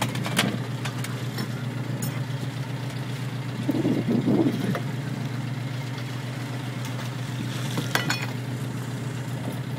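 Fishing boat's engine idling steadily, with a few short knocks near the start and about eight seconds in, and a brief louder rumble about four seconds in.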